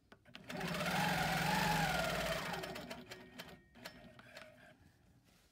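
Longarm quilting machine stitching a short run. The motor's whine rises and falls with the rapid needle strokes for about two and a half seconds, then stops. A few light clicks follow.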